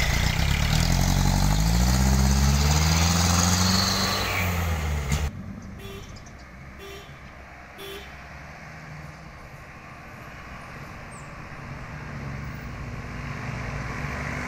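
Loaded diesel mini cargo truck passing close by, its engine note climbing steadily for about five seconds before the sound cuts off suddenly. After that, quieter road noise with three short horn toots about a second apart, and the engines of another truck and a motorcycle growing louder as they approach near the end.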